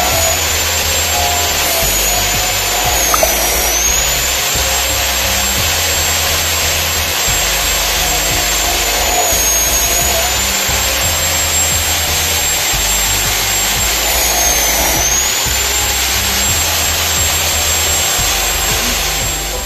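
Abrasive cut-off saw running and cutting wire-reinforced hydraulic hose, a steady grinding hiss with a high whine that dips in pitch three times. Background music with a steady beat plays underneath.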